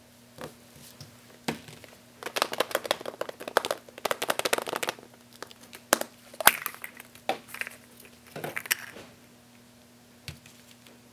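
Hollow plastic toy surprise eggs handled and opened: clicking and clattering plastic with a dense crinkling rattle, and a sharp snap about six and a half seconds in.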